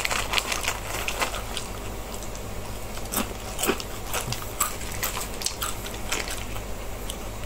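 A person chewing crunchy Mikako snack crackers close to the microphone: a quick run of crisp crunches in the first second or so, then single crunches spaced out.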